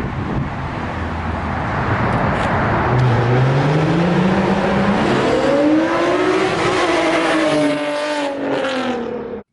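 A car engine accelerating past. Its pitch climbs steadily for a few seconds, then falls away as it goes by, over a steady rushing noise.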